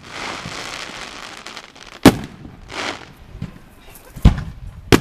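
Aerial fireworks display: a steady hiss for the first two seconds, then three sharp shell-burst bangs, about two seconds in, just after four seconds, and at the very end.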